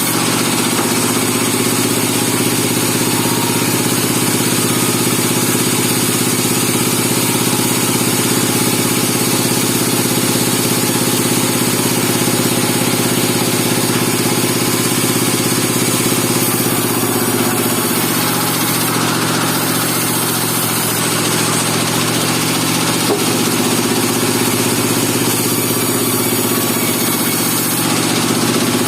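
Engine of a portable band sawmill running steadily. Its note sags and recovers twice in the second half.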